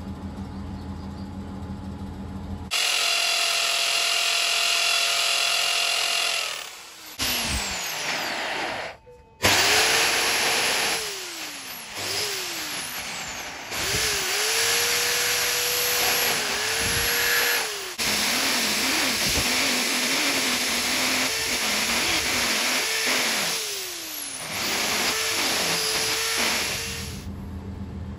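Electric drill boring through a brass knife guard clamped in a vise, opening the slot for the blade's tang. After a low steady hum in the first few seconds, the motor starts up and runs down again and again as the trigger is pressed and released, its whine rising and falling each time.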